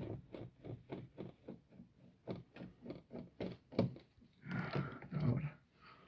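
A quick, even run of small clicks and knocks, about four a second, from working the terminal screws of circuit breakers while fastening wires. There is a denser rustling, scraping stretch a little past the middle.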